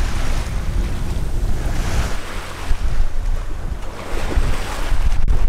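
Water rushing along the hull of an aluminium Beason 40 sailboat under sail through choppy seas, swelling and easing in surges, with wind buffeting the microphone in a steady low rumble.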